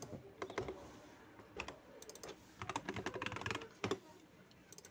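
Typing on a computer keyboard: a few scattered keystrokes, then a fast run of keys about two and a half seconds in that stops a second later.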